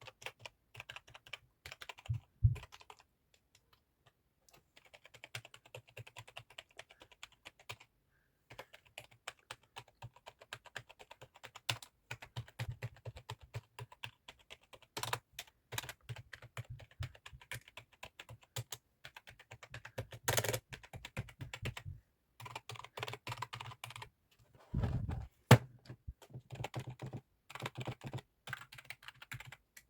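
Computer keyboard typing in quick runs of keystrokes broken by short pauses, with one heavier, deeper thump about 25 seconds in.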